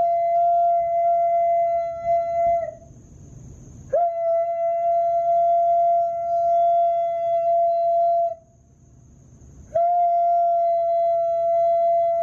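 A man's voice holding a loud, steady high note, the kind of sustained tone used to shatter a wine glass. It is sung three times, each note scooping up into pitch and held for about four seconds, with short breaks between.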